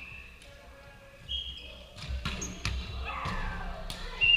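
Volleyball being hit and bouncing on a hardwood gym floor: a few sharp thuds, most about two seconds in, echoing in the large hall. Short high squeaks and players' voices come in between, and one loud squeak falls near the end.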